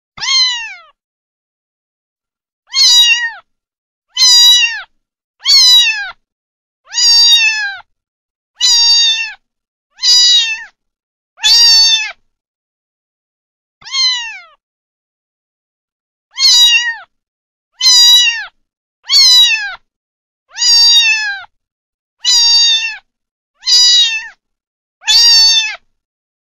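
A kitten meowing over and over: sixteen high-pitched mews, each under a second long and dropping in pitch at the end. They come about one every one to two seconds, with dead silence between them and a longer pause around the middle.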